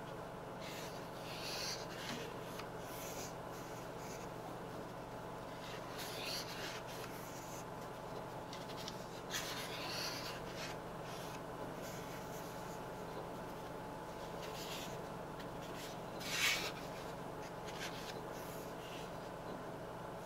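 Pages of an Ogmai stone-paper sketchbook rustling as cotton-gloved hands turn and smooth them: scattered soft swishes and rubs, the loudest about three-quarters of the way through.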